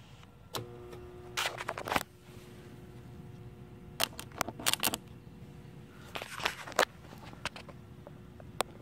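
A battery charger is switched on with a click and hums steadily. Three bursts of sharp clicking and crackling come as its alligator clamps are clipped onto the electrode plates of a home-built HHO generator.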